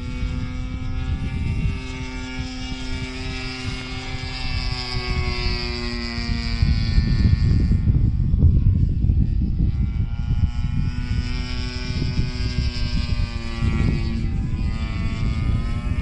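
Propeller engine of a Seagull Edge 540 V2 radio-controlled aerobatic model plane droning overhead at a steady pitch. It fades out for a few seconds in the middle, when wind rumbling on the microphone is loudest, then comes back.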